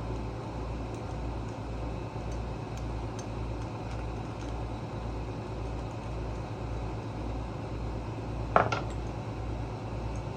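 Steady low shop hum with a regular slow pulse underneath, and one sharp metallic clink near the end as a small tool or carburetor part is set down on a hard surface.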